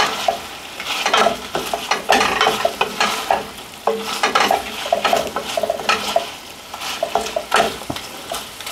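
A utensil stirring, scraping and knocking in a pan of homemade tocino cooking on the stove, with a steady sizzle underneath.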